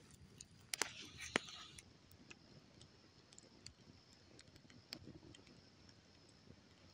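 Wood campfire crackling faintly, with sparse sharp pops and snaps every second or so, a few louder ones in the first second and a half.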